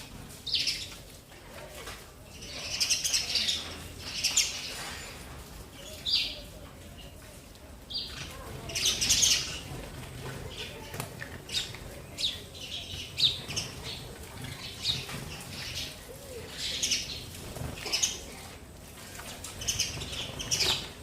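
Sparrows chirping in short, irregular calls.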